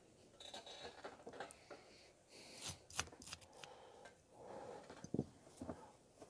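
Faint rustling of a cloth shop rag rubbing over a brass Coleman lantern valve body as the naval jelly is wiped off, with a few light clicks of the metal parts being handled.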